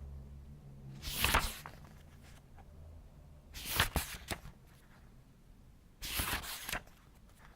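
Paper book pages being turned slowly by hand, three separate page turns about two and a half seconds apart, each a short crisp rustle.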